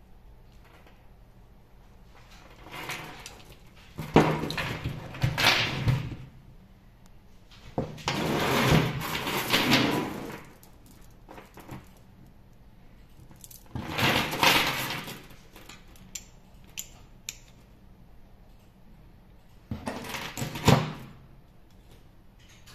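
Steel load chain of a small aluminium lever hoist rattling and clinking as it is handled, in five bursts of a second or two each, with a few sharp metal clicks between them.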